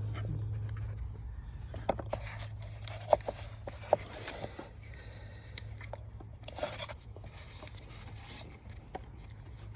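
Hands working on parts in a car's engine bay: scattered sharp clicks and scrapes of plastic and metal over a low hum that fades in the first few seconds.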